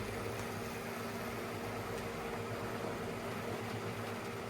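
Tender-drive model locomotive crawling along the track at low speed, its small electric motor giving a steady hum; its axle slots are freshly cleaned and lightly oiled, so it runs smoothly.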